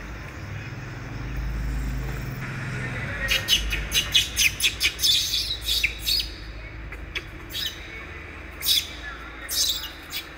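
A quick run of short, high-pitched chirping calls, several a second, starting about three seconds in and lasting about three seconds, then a few single chirps further apart. A low rumble sits under the first few seconds.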